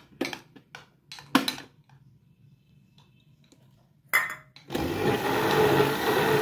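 A few light knocks as the blender jug and lid are handled, then about two-thirds of the way in an electric blender starts and runs steadily. It is churning lumps of freshly made butter with cold water, which brings the butter together into one mass.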